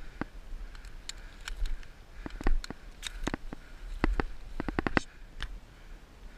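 Walking through dry scrub on stony ground: footsteps and branches brushing past make an irregular run of clicks and scrapes, thickest in the middle and towards the end.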